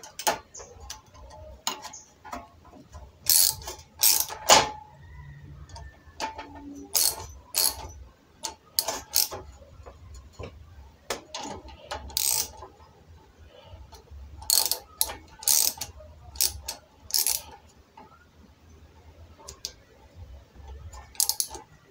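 Irregular metallic clicks and taps of a small hand tool tightening a threaded fitting on brass gas-burner pipework, some coming in quick clusters of several clicks.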